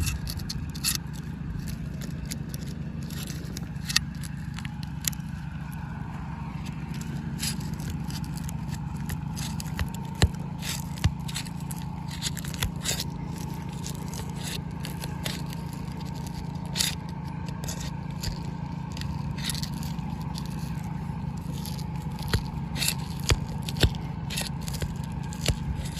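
Irregular scraping and crackling clicks of architectural asphalt shingles being worked loose from their sealant strip, over a steady low hum.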